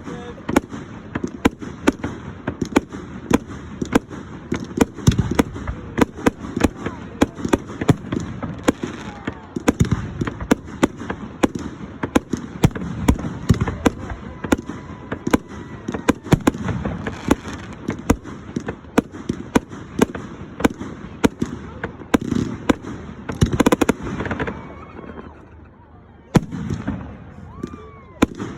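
Fireworks display: a dense, rapid run of bangs and crackles from aerial shells, with a short lull a few seconds before the end and a few whistles from rising rockets.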